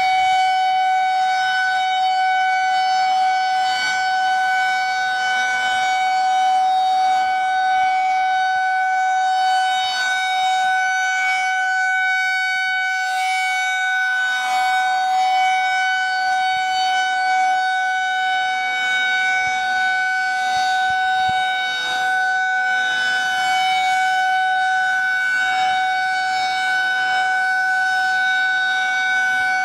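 Federal Signal 2001-SRN outdoor warning siren sounding during a siren test, holding one steady, loud tone with its overtones.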